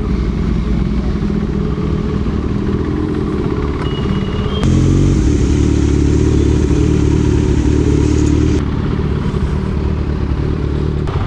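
Motorcycle engines of a single-cylinder KTM Duke 390 and a Kawasaki Z900 running at low speed in city traffic, heard from the Duke's riding position. The engine sound steps up louder for about four seconds in the middle, then drops back.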